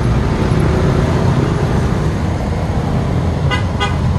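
Steady low rumble of street traffic, with two short beeps about three and a half seconds in.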